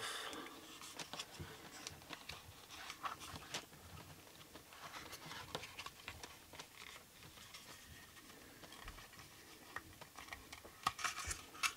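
Faint handling noises as a rubber seal is worked off the plastic fan motor housing of a Roborock S7 MaxV robot vacuum: light rubbing with scattered small clicks and taps.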